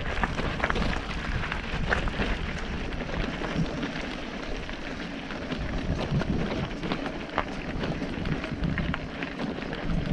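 Mountain bike tyres rolling over loose gravel and stones, a continuous crunch peppered with many small clicks and rattles, over a low rumble.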